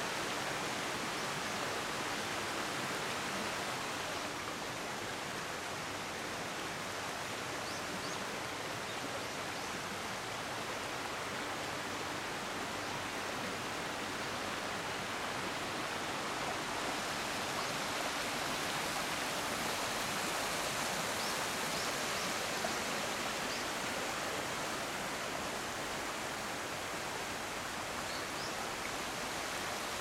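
Shallow mountain stream rushing and babbling over a wide rocky bed: a steady, even sound of running water.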